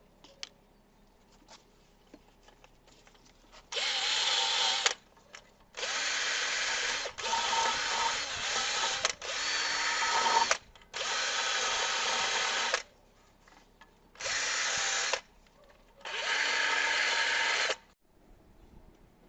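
A power tool run in about seven short bursts of one to two seconds each, with an even, steady whir during each run.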